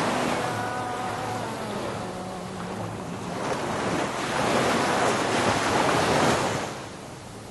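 Rushing surf-like wave and wind noise, swelling in the middle and fading away near the end.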